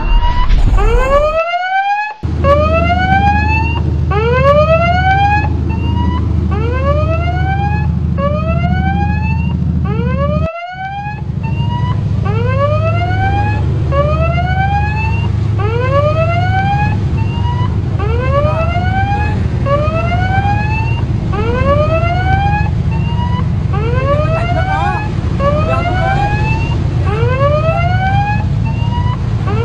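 A ship's siren whooping over and over, each call a quick rising sweep, a little under one a second, over a steady low rumble. It breaks off briefly twice.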